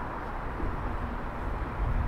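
Outdoor city ambience: a steady hum of distant traffic, with a low rumble swelling near the end.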